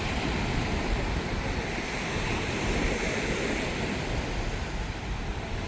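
Steady wash of sea surf with wind rumbling on the microphone.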